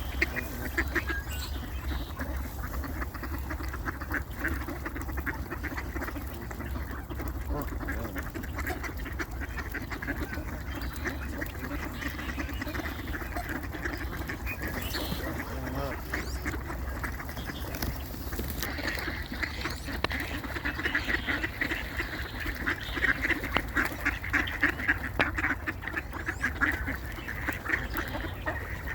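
A flock of ducks and Canada geese calling while being fed, with many quacks and calls overlapping. The calling grows busier and louder about two-thirds of the way in.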